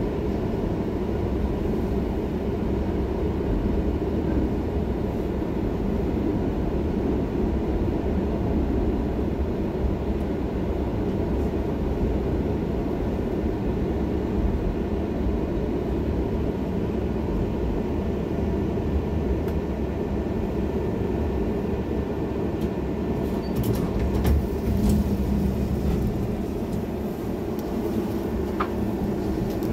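Tram running along its rails, heard from inside the car: a steady low rumble of wheels and motors, with a few sharp clicks near the end.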